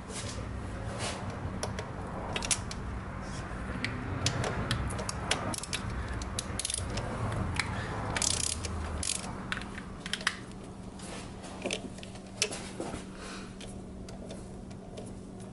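Socket ratchet on a long extension clicking in quick runs as it backs out a 10 mm bolt on a diesel engine's intake. The clicks come thickest for the first several seconds, then slow to scattered strokes.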